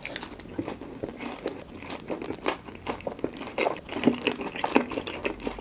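A person biting into and chewing dark-glazed fried chicken (Jjapa chicken) dipped in cheddar cheese sauce: a dense run of crisp crunches and chewing sounds.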